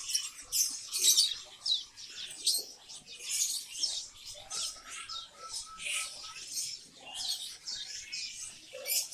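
Many caged birds chirping and calling at once, a dense, continuous mix of short, high chirps and quick pitch sweeps.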